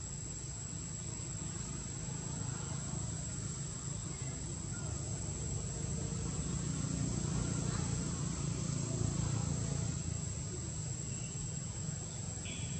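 Outdoor ambience: a steady high-pitched insect drone over a low, even rumble that swells slightly midway.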